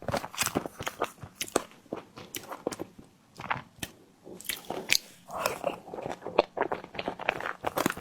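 Close-miked eating of a tiger skin dessert: biting and chewing, with many quick wet mouth clicks and smacks and a short pause about halfway through.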